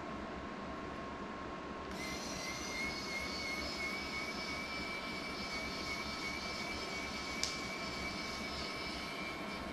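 A small electric motor whining steadily, with a rush of air, switched on abruptly about two seconds in; its pitch creeps slightly upward, and a single sharp click sounds near the end.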